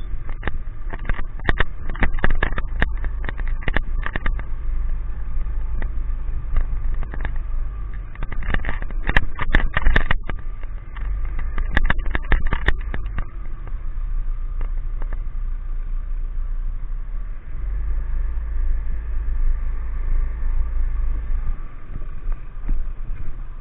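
A vehicle travelling along a wet, rough street: a steady low rumble with clusters of sharp knocks and rattles about a second in and again around ten seconds in, then steadier running.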